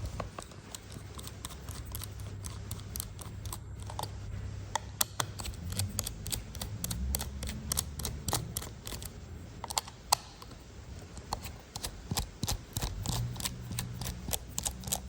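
Irregular small clicks and ticks of an H1.5 hex-bit screwdriver working the tiny screws out of a plastic remote-control housing, with hand-handling noise.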